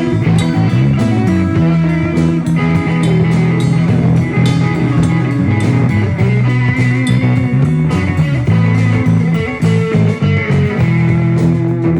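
Live band jamming: electric guitar playing over a repeating bass line, with drum hits keeping the beat.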